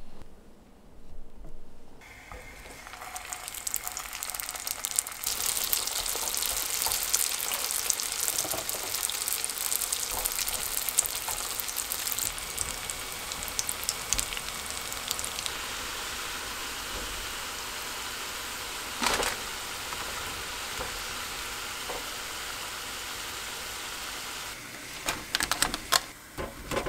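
Spring rolls shallow-frying in hot oil in a pan: a steady sizzle that starts about two seconds in. There is a single sharp tap partway through and a cluster of clicks and knocks near the end.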